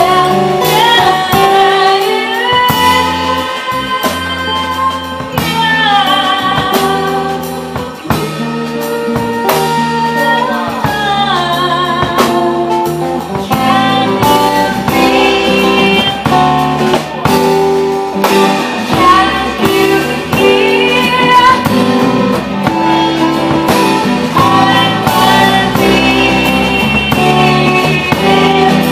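Live band playing a song: a singer holding long, wavering notes over acoustic guitar and a drum kit.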